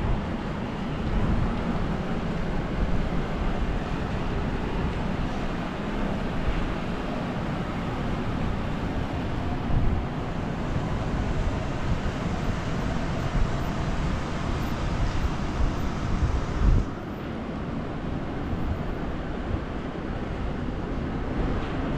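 Jet engine roar of the Airbus A330-243 MRTT tanker in flight, a steady broad rumble, with wind buffeting the microphone in a few thumps. The high hiss drops away abruptly about 17 seconds in.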